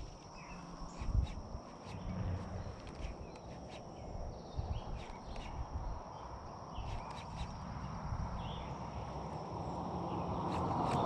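Steady high-pitched insect drone with low wind and handling rumble and a few faint clicks; near the end a vehicle approaches on the road, its noise swelling steadily.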